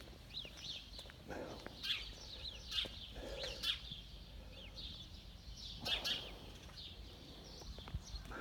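Small birds chirping and twittering in many short, quick, falling chirps, with footsteps on a brick path as a few louder knocks about a second apart.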